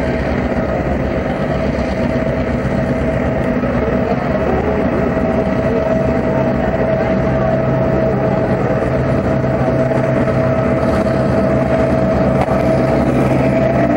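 P class diesel-electric locomotive running light, its diesel engine running steadily with a steady high whine over it. It gets a little louder as the locomotive draws near.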